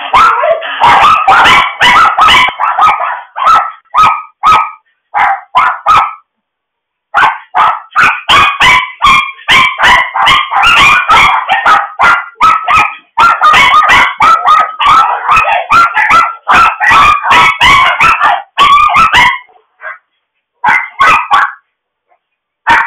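Puppies at play yipping and barking, a loud, quick string of high yips that pauses for about a second around six seconds in.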